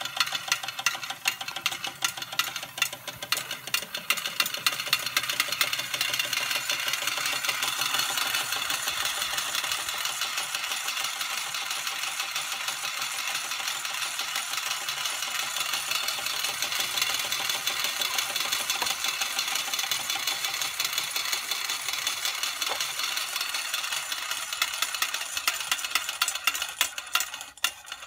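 Early Schoenner vertical toy steam engine running and driving a tin toy by a string belt: a fast, even ticking clatter that thickens into a steady rattle in the middle and thins back to separate ticks near the end.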